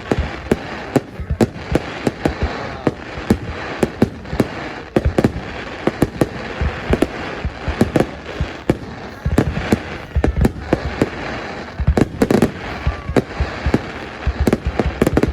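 A fireworks display: many sharp bangs in quick, irregular succession over a steady crackle.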